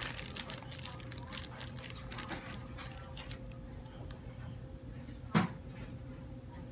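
Hands pressing chopped onions and peppers onto raw ribs in a metal baking pan: soft wet clicks and crackles, with one louder thump about five seconds in, over a steady low hum.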